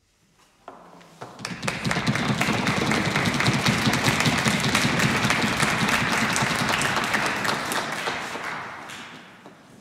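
Hand-clapping applause from a small ensemble of musicians. It starts about a second in, quickly swells to a steady clatter, holds, and then dies away near the end.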